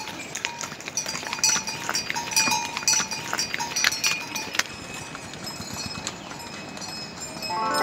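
Hooves of a string of loaded pack animals clopping on a stone-paved trail, with bell-like ringing mixed in. The clopping fades after about five seconds, and background music starts near the end.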